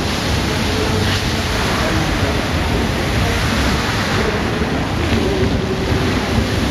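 Bellagio fountain's water jets shooting up and splashing back into the lake, a steady rushing roar of water.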